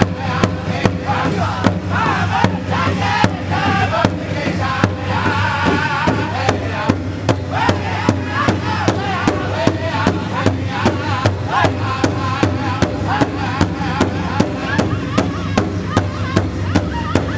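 Powwow drum group: several men striking one large shared powwow drum with sticks in unison, a steady beat about two strikes a second, with the group's high-pitched singing over the drum. The singing is strongest in the first dozen seconds and thinner near the end while the beat keeps on.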